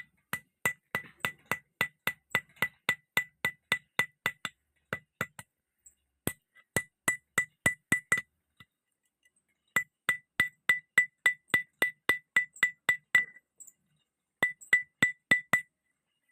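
Blacksmith's hammer striking steel on an anvil while forging a chisel from a railway clip: quick, even blows, about three or four a second, each with a bright ring. The blows come in four runs with short pauses between them.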